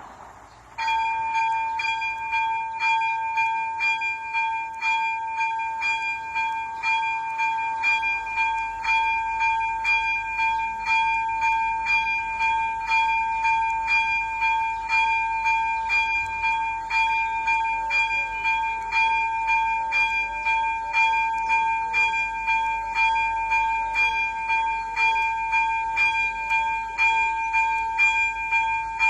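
Electronic level-crossing bell (AŽD ZV-02) starting up and ringing steadily at about two strikes a second: the crossing's warning signal has been activated for an approaching train.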